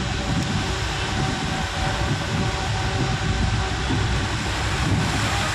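Steady rumble of a vehicle driving along a flooded road, its engine and tyre noise heard from inside the vehicle.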